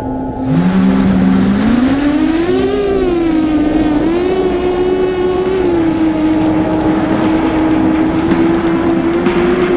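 Brushless motors and propellers of an Armattan Mini V-tail FPV quadcopter spooling up for takeoff, heard from on board: a whine that starts about half a second in, rises in pitch over the next couple of seconds, wavers with throttle, then holds fairly steady over a rush of prop wash and wind.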